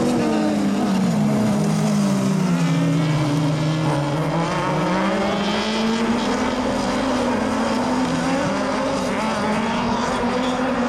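Several four-wheel-drive autocross buggies' engines, of up to 1600 cc, racing at high revs with their sounds overlapping. The main engine note drops over a couple of seconds, then climbs again about halfway in.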